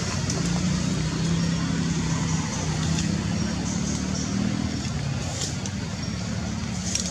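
Low, steady engine drone of a motor vehicle over constant outdoor background noise; the hum fades out about five seconds in.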